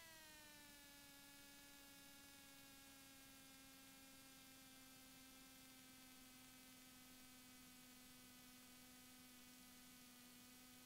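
Faint steady electrical whine with many overtones in the Piper Cherokee's intercom audio. It eases down in pitch during the first second and then holds steady, following the engine's speed as power comes back to idle for the landing, typical of alternator whine.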